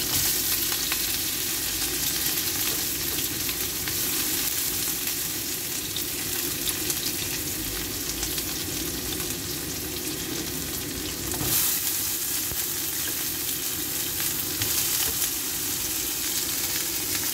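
Sliced shallots, garlic and galangal sizzling in hot oil in a frying pan, a steady hiss with small pops and crackles. The sizzle swells briefly about eleven seconds in.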